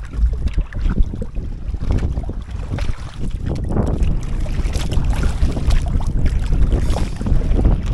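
Wind buffeting the microphone in a steady low rumble, with water sloshing and splashing against the bamboo poles of a raft as it moves through the sea.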